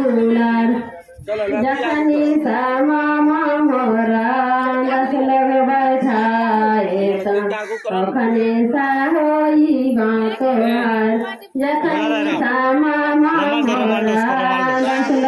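Women singing a traditional wedding song without instruments, in held, stepping phrases with short breaks about a second in and twice more later on.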